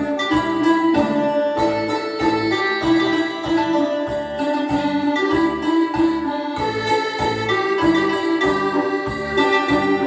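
Stage dance music with a steady quick beat and jingling small bells shaken in time.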